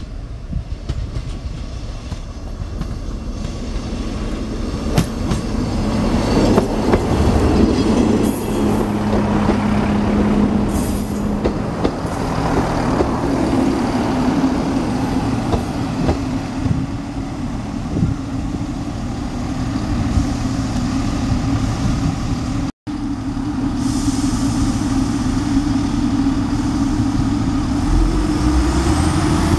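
A Class 158 diesel multiple unit approaches and runs past close by. Its underfloor diesel engines drone steadily and the wheels rattle on the track, growing louder over the first several seconds. There is a brief break in the sound about three-quarters of the way through, after which the engines run on steadily.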